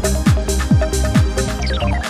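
Electronic theme music of a TV news programme's opening titles: a steady kick drum beat about twice a second under synth chords, with a falling synth sweep starting near the end.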